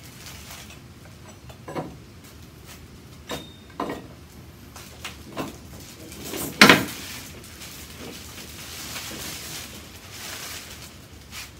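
Hard parts being handled and set down: a series of light clicks and knocks, with one louder clunk about two-thirds of the way in, then a soft rustling.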